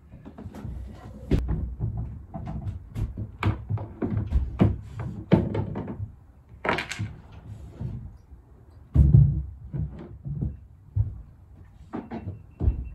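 Irregular knocks, clunks and rattles of hands-on work on the wiper-motor installation, with a brief scrape about seven seconds in and a heavier thump about nine seconds in and again near the end.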